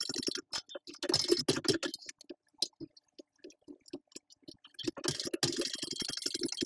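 TechSew 2750 Pro walking-foot industrial sewing machine top-stitching a leather strap: rapid, even needle strokes in quick runs, stopping for about three seconds in the middle with only a few scattered clicks before it starts stitching again.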